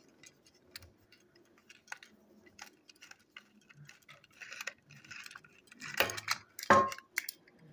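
Irregular small plastic clicks and taps as a Plarail EH500 toy locomotive is turned over and handled.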